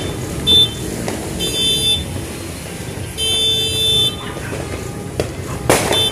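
A horn tooting in three short blasts, the last the longest, followed near the end by a single sharp firework bang.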